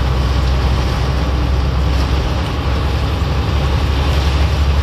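Container lorry's engine running with a low, steady drone heard inside the cab, under an even hiss of rain and wet tyres on the road.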